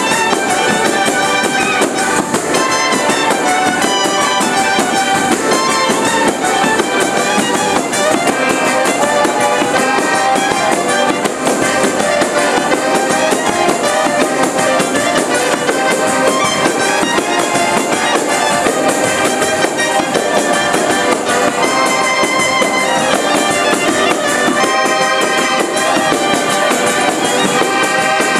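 Montemarano tarantella played live by a folk band: accordions, a trumpet and a woodwind carry the tune over jingling tambourines beating a steady rhythm. The music plays on loudly and without a break.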